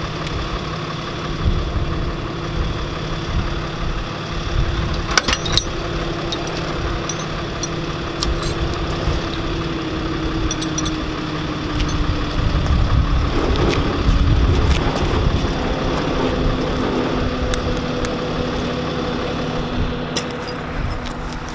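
Tow truck engine idling steadily, with a few sharp metallic clicks about five seconds in.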